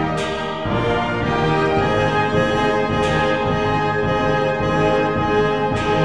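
Background orchestral music led by brass, with an accent about every three seconds.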